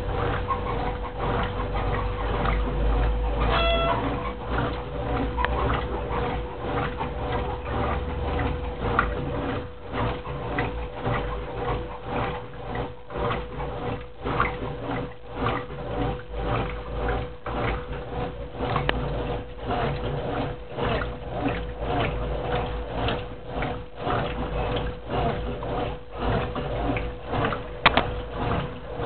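Brastemp Clean 10 kg washing machine washing a duvet: a steady motor hum under a rhythmic churning and swishing of water and fabric that surges a little more than once a second.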